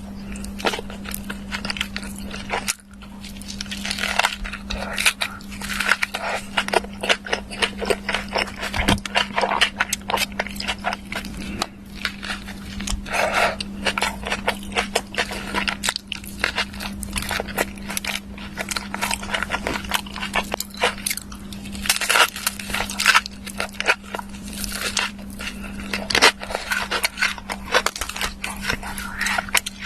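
Close-miked eating sounds: dense crackly crunching and chewing clicks, over a steady low hum.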